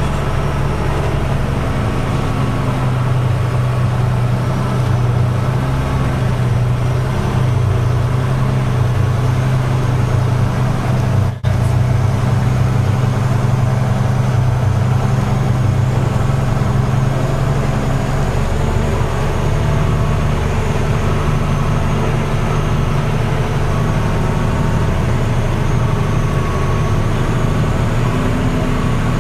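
Diesel truck engine running steadily, heard from inside the cab while driving slowly, as a constant low drone. The sound cuts out for an instant about eleven seconds in.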